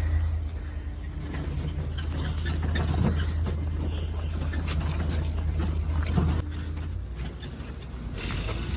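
Small metallic clicks and rattles of hand-tool work on a vehicle, over a steady low hum that stops about seven seconds in.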